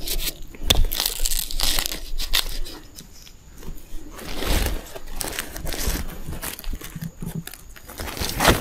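Dry plant material crackling, rustling and tearing in irregular bursts, with a few sharp snaps.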